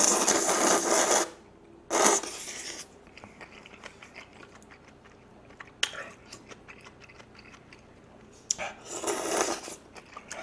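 A person slurping jjajangmyeon noodles (black bean sauce noodles), a long loud slurp that ends about a second in and a shorter one around two seconds, followed by quieter chewing and another burst of slurping about nine seconds in.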